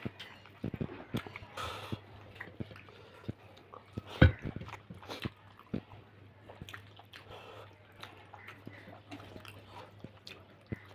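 A person chewing and eating rice with fish curry: many short, wet mouth clicks and smacks, with one louder knock about four seconds in.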